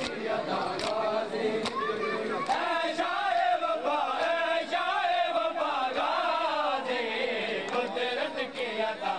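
Men's voices chanting a noha lament in unison, with sharp slaps of hands on bare chests (matam) falling in time about every 0.8 seconds.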